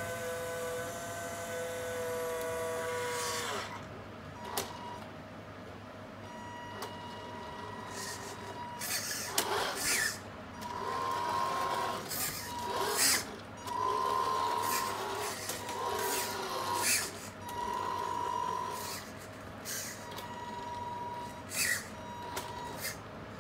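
Radio-controlled 1/14 scale Tamiya Mercedes-Benz Actros tipper truck running under power. A steady electric whine sags slightly and stops after about three and a half seconds. After that come short on-and-off whines as the truck is driven in spurts, with several sharp hisses.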